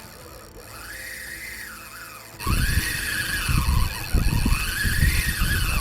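Fishing reel's drag whining as a hooked halibut pulls line off, a whine that rises and falls about once a second. About two and a half seconds in, a loud low rumbling noise joins.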